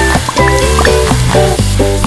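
Background music: bright pitched notes over a bass line, the notes changing several times a second.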